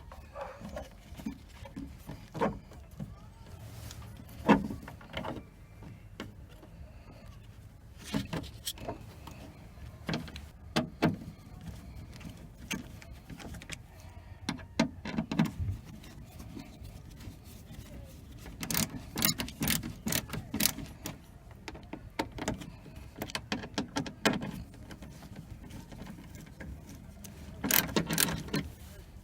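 Scattered clicks, taps and knocks of hands working on a car door's speaker fitting, with one sharp knock about four seconds in. There are bursts of rapid clicking about two-thirds of the way through and again near the end.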